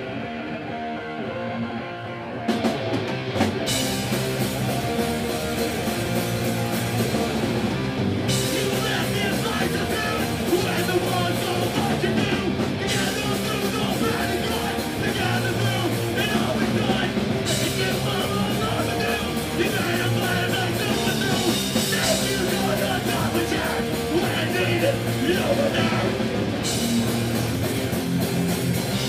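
Hardcore punk band playing live and loud, with distorted electric guitar, bass and drums. Guitar carries a thinner opening, then the drums and cymbals crash in about two and a half seconds in and the full band drives on.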